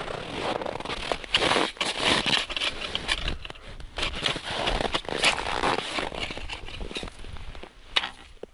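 Footsteps in boots crunching through packed, frozen snow on river ice at a walking pace, one crunch after another.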